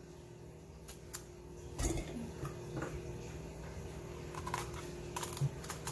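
Quiet handling sounds: a few light taps and knocks as loofah gourds and a knife are moved about on a table, over a steady low hum.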